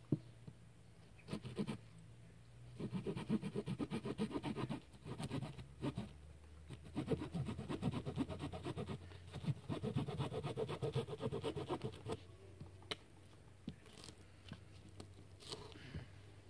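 A blade cutting and scraping a wooden stick in quick, even strokes, about seven a second. The strokes come in three runs of a couple of seconds each, with a few single knocks and clicks between them.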